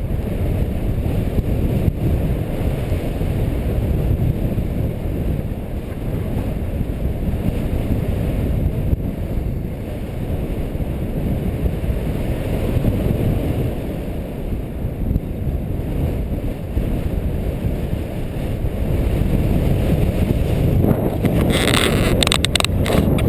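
Rushing airflow on the microphone of an action camera carried by a paraglider in flight: a loud, steady, low rumble of wind. Near the end it turns harsher, with rapid crackling buffets.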